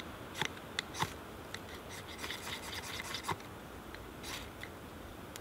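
Ferrocerium fire steel scraped against birch bark tinder: about half a dozen short, sharp rasping strikes at irregular intervals. These are repeated strikes to light birch bark that is wet and slow to catch.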